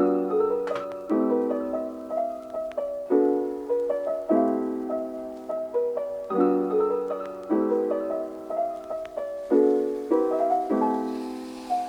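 Background music: a piano playing a slow run of chords, a new chord struck about every second and left to fade.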